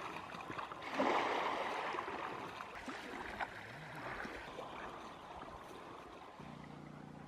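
Shallow lake water sloshing and splashing softly around people wading through it, swelling about a second in and then fading. A faint low steady hum comes in near the end.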